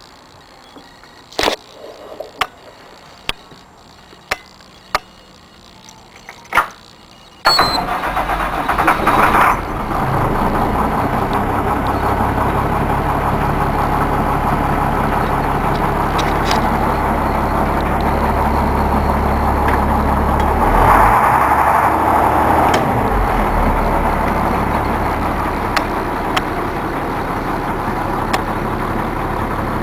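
A few sharp clicks, then about seven seconds in the school bus's DT466E inline-six diesel cranks and catches in a rough two-second burst. It settles into a steady diesel idle.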